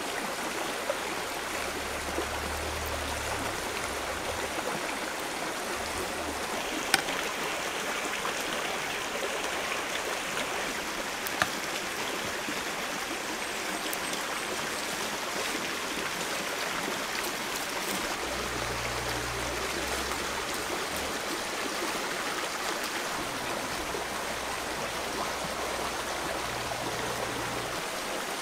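Steady rush of flowing stream water, with a few sharp clicks, the clearest about seven seconds in.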